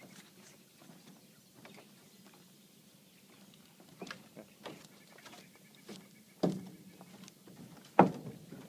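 Light knocks and clicks, then two heavy thumps on the wooden dock boards about a second and a half apart, the second the loudest, as someone steps up close and handles gear on the dock.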